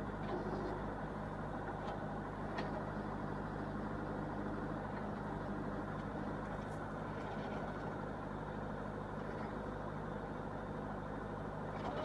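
Tractor engine running steadily while it drives the hydraulics of a rear-mounted LW-6 backhoe that is digging and lifting soil, with a few faint clicks.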